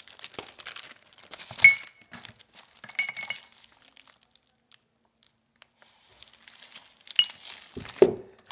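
Plastic packaging bag crinkling as it is handled, with sharp metallic clinks of chrome crank parts and bolts knocking together, twice in the first few seconds and again near the end. A pause of quiet in the middle, and a dull thud just before the end as something is set down.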